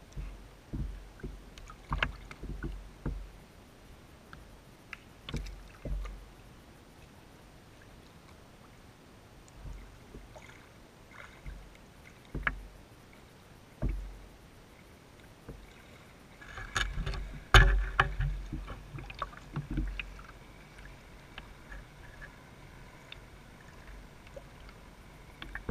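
Water lapping and splashing against the plastic hull of a small RC boat, with irregular knocks and low thumps. They come thickest about two-thirds of the way in.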